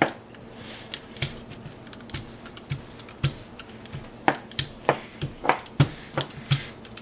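Small handled rolling pin working dough on a floured glass stovetop: a run of irregular sharp clicks and knocks as the roller strikes and rattles against the glass.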